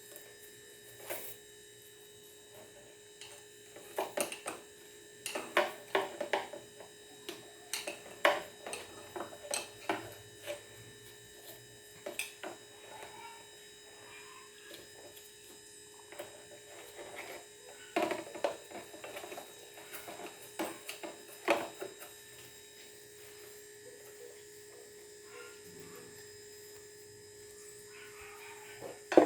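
Irregular clicks and knocks of lawn mower parts and tools being handled, over a steady electrical hum.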